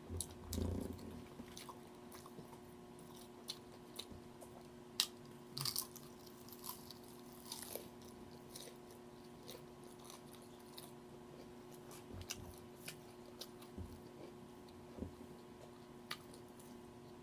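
A person eating crispy fried food close to the microphone: scattered crunching bites and chewing, with a low thump about a second in.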